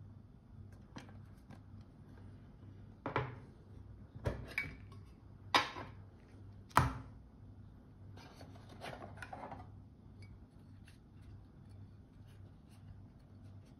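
Metal watch gift tin and its lid handled on a wooden tabletop: five sharp clacks spread over a few seconds, then a short rustle as the contents are lifted out.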